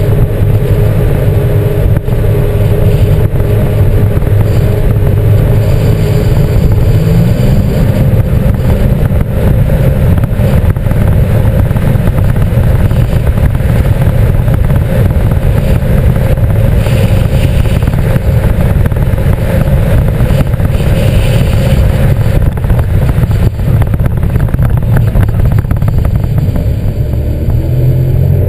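Sea-Doo GTX 260 iS Limited personal watercraft running at speed, its supercharged Rotax three-cylinder engine and jet drive making a steady, loud drone over the rush of water. The engine note shifts near the end as the craft slows.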